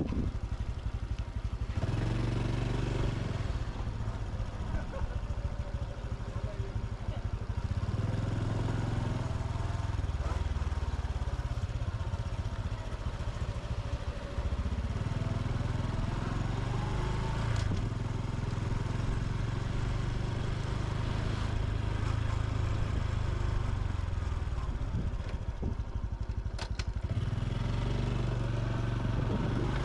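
Honda Super Cub C125's single-cylinder four-stroke engine running under way. Its note rises and falls several times as the bike speeds up and eases off, with a few quieter spells.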